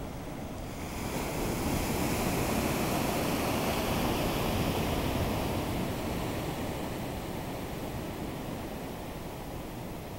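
Ocean surf washing in over the sand. The rush of foaming water swells about a second in, is loudest over the next few seconds, then slowly eases off.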